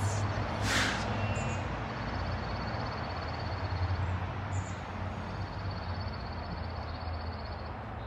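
Outdoor backyard ambience: a steady low rumble of road traffic, with a short harsh bird call about a second in and a few faint bird chirps. A thin high-pitched buzz comes and goes.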